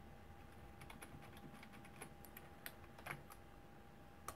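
Faint typing on a computer keyboard: a run of light, irregular key clicks as a Wi-Fi password is entered.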